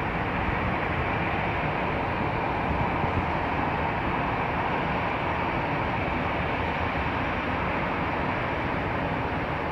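Steady roar of a departing jet airliner's engines, an even rushing sound with no changes, cutting off abruptly at the very end.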